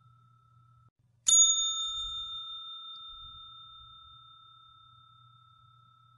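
A single bell-like ding, struck once about a second in and ringing out with a slow fade over several seconds. A faint steady tone cuts off just before the strike.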